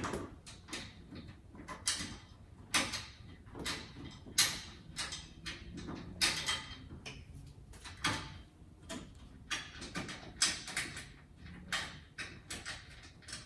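Hand tools clicking and clinking against metal fittings in short, irregular strokes while a part is worked into place on the car.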